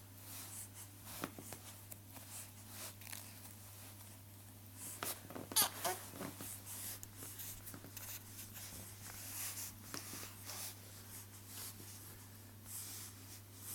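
A ten-week-old baby making small noises: soft rustling and breathing sounds, with one brief pitched vocal sound a little under halfway through.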